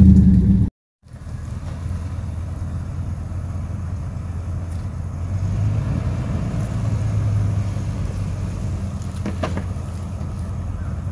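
GMC Sierra pickup's engine running steadily, a low rumble that swells slightly about halfway through. A brief dropout about a second in.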